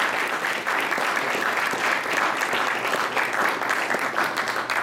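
Audience applauding to welcome a lecturer: dense, steady clapping that dies away near the end.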